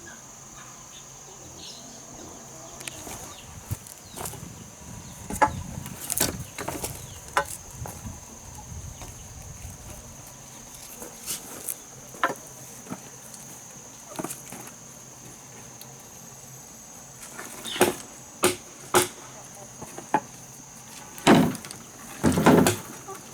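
Steady high-pitched insect drone under irregular knocks and clatters of wood being handled and worked, with a run of louder knocks in the last few seconds.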